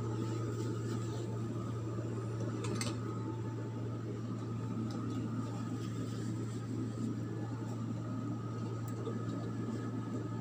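A steady low mechanical hum, with two short clicks, one right at the start and one about three seconds in.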